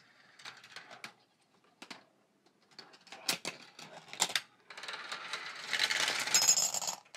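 Marbles rolling and clicking along a Gravitrax plastic marble run: scattered light clicks, a few sharp knocks, then a dense clatter of several marbles running together over the last two seconds or so.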